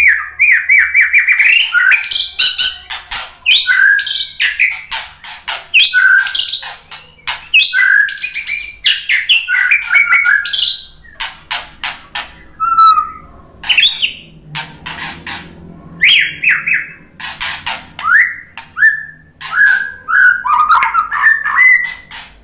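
A caged white-rumped shama (murai batu) singing a loud, varied song: whistled phrases that rise and fall, mixed with rapid clicking chatter, with almost no pause.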